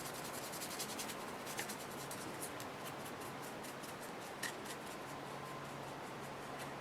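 Soft, scratchy strokes of a paintbrush working acrylic paint onto a clay piece, with a small click about four and a half seconds in.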